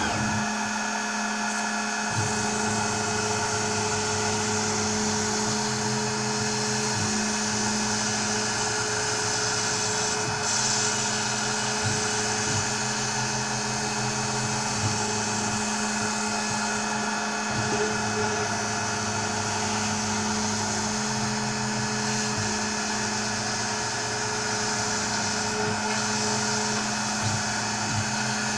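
Onefinity CNC router cutting foam board: the spindle runs steadily with a high, drill-like whine. Low stepper-motor tones shift pitch every second or two as the axes move.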